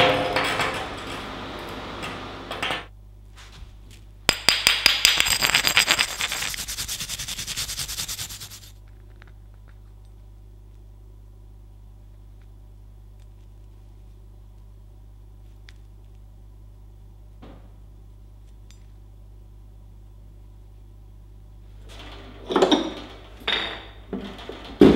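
Welding arc from a Decapower SYNMIG-200 multi-process inverter welder crackling in two bursts, the first about three seconds long and the second about four seconds long after a short pause. A steady low hum follows, and a few sharp knocks come near the end.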